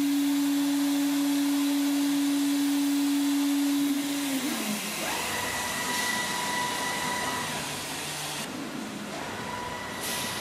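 HSD electrospindle of a Mecal Nike CNC profile machining centre running at a steady high whine while machining an aluminum profile, then spinning down with a falling pitch about four seconds in. After that the machine's axis drives whine as the head moves, a higher tone that rises and then holds, twice.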